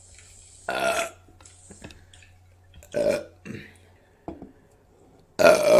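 A woman burps three short, loud times: about a second in, about three seconds in, and the loudest near the end.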